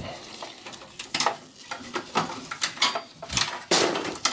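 Gloved hands unplugging and handling cables inside a desktop computer case: irregular rustles and small plastic clicks and scrapes, the loudest a longer rustle near the end.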